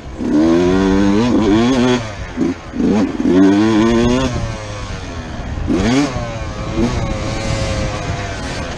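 Dirt bike engine heard from on board, revving up and dropping off repeatedly as it is ridden over a dirt track, its pitch climbing on the throttle and falling between. About six seconds in there is a quick sharp rev; near the end it runs steadier and lower.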